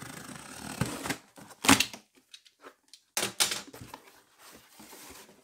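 Packing tape on a cardboard box being slit with a small blade: a steady scratchy scrape for about a second. Then the cardboard flaps are pulled open, with two loud crackling rips about a second and a half apart and a softer rustle after.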